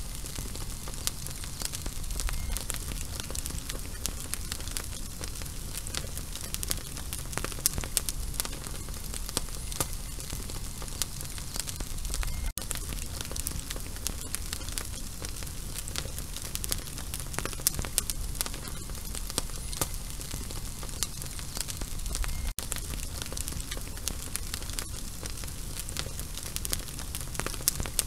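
Burning fuse sizzling steadily with dense fine crackling, cutting out for a split second twice.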